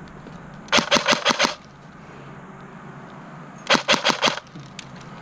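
Airsoft rifle firing two short full-auto bursts of about six or seven shots each, the first about a second in and the second near four seconds in, with a single faint click shortly before the end.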